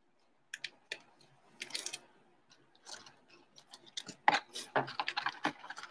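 Light clicks and rustling of trading cards in hard plastic toploaders being handled and stood in a cardboard box. The clicks are sparse at first and come thick and fast from about four seconds in.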